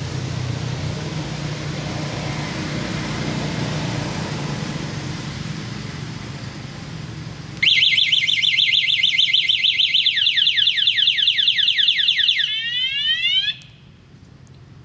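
Motorbike anti-theft alarm going off, set off by a macaque sitting on the bike: a loud electronic siren of fast-warbling tones, then rapid falling chirps, ending in a few descending sweeps and cutting off suddenly. Before it starts, about halfway through, a steady low rumble.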